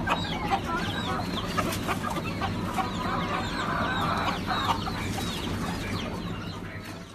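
Domestic chickens clucking and calling, with many short calls falling in pitch, several a second, over a steady low hum. The sound fades out near the end.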